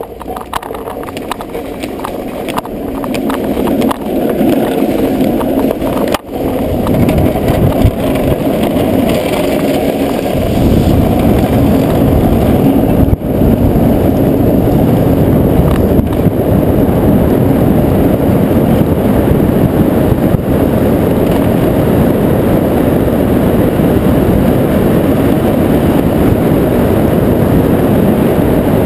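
Street luge's urethane wheels rolling fast on asphalt together with wind rushing past the camera mounted on the board, a dense low noise that grows louder over the first ten seconds as the luge gathers speed downhill, then holds steady.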